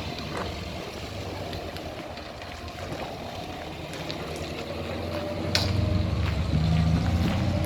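Morris Minor engine running with a steady low hum, getting louder about five and a half seconds in, with a sharp click at that moment.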